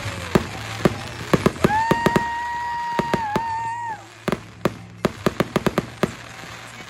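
Aerial fireworks going off in quick succession: a rapid, irregular run of sharp pops and crackles from bursting shells. A steady whistling tone of about two seconds rises in about one and a half seconds and wavers just before it stops, and the whole display is loudest while it lasts. After it the pops and crackles go on more quietly.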